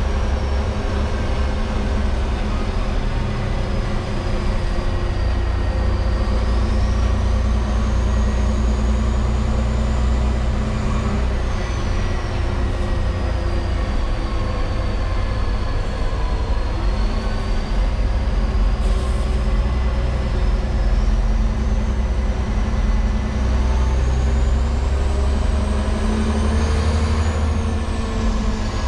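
LGMG CMT96 off-highway dump truck's diesel engine running steadily under way, with a high whine that slowly rises and falls over several seconds at a time.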